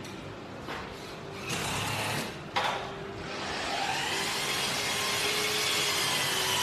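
Clicks and knocks of steel blades and a wooden frame being handled as a shredder is fitted inside a picture frame, the loudest a sharp knock about two and a half seconds in, over a steady hum.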